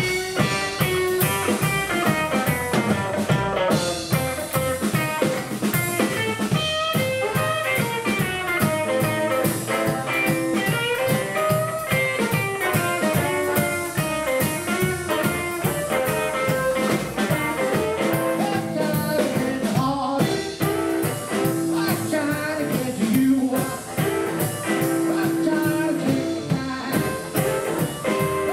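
Live blues band playing an instrumental passage on archtop electric guitar, plucked upright double bass and drum kit, over a steady beat. A lead line of held, bending notes runs over the top.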